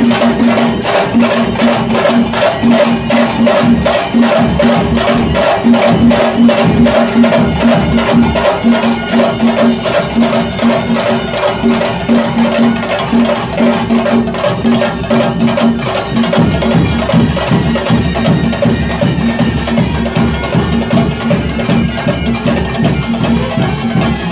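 Traditional music of a Tulu nema ritual: fast, dense drumming with a held tone pulsing on and off over it.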